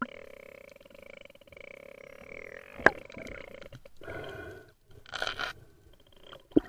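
Muffled underwater sound picked up by an action camera in its waterproof housing, with one sharp knock a little under three seconds in and rougher rushing noise about four to five seconds in.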